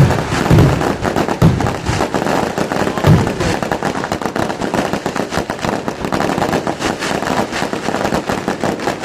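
Fireworks going off: a few deep booms in the first three seconds, then a dense, rapid rattle of firecracker bangs that carries on without a break.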